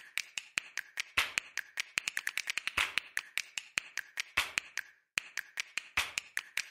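Rapid, uneven clicking and ticking, several sharp clicks a second with some louder snaps among them. It breaks off briefly about five seconds in, then starts again.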